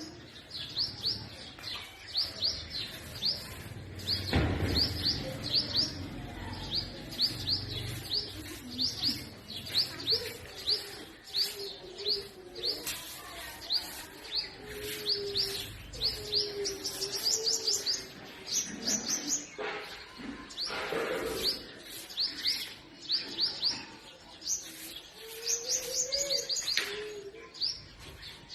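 Purple sunbird calling: a long series of sharp, high chirps, two or three a second. A fainter low, wavering call runs underneath in the second half.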